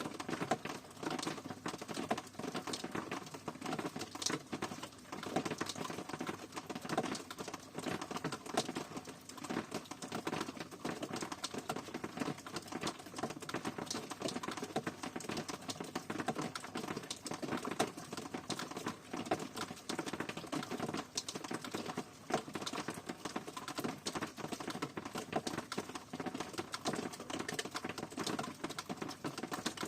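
Steady rain pattering, with a dense, irregular run of drops ticking on a hard surface.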